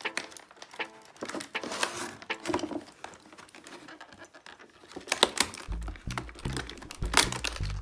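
Clear plastic blister tray crinkling and clicking as hands twist and pull at it to free an action figure, with a few sharper cracks of the plastic. Background music plays underneath, with a deep bass part coming in a little after halfway.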